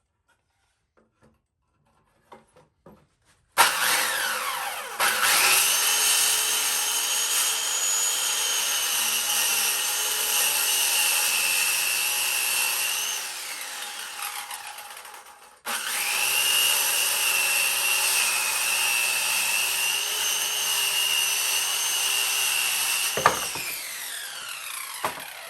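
Electric power saw cutting wood in two long runs. Each time the motor spins up to a steady high whine, then coasts down when the cut is done, with a sharp click as the second run ends.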